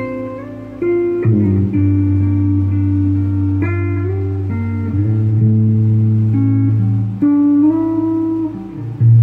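Solo electric guitar: a low note rings under a line of picked notes that change every second or so.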